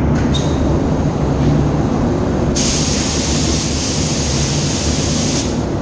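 Paint spray gun letting out a steady hiss of air for about three seconds, starting a little before halfway and cutting off sharply. Under it runs the steady low drone of the paint booth's ventilation.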